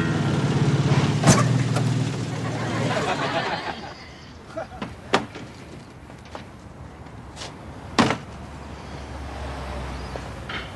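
Car engine running for about four seconds and then cutting off, followed by a few clicks and a car door slamming shut about eight seconds in.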